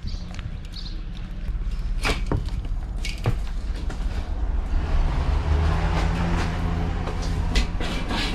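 A vehicle engine running with a steady low rumble, a few sharp knocks about two and three seconds in, and the rumble growing louder and rougher from about halfway through.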